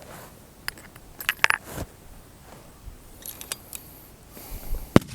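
Metallic clicks and clinks of a target rifle being handled, its bolt worked and brass cartridge cases knocking together, coming in two clusters. A single sharp crack, the loudest sound, comes near the end.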